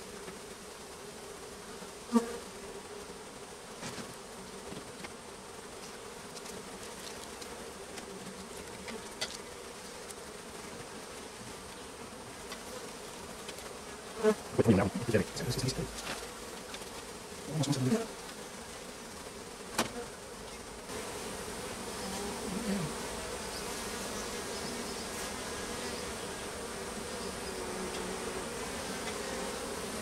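A mass of honeybees buzzing steadily, with a few sharp knocks and bumps from comb and wooden frames being handled, loudest about halfway through.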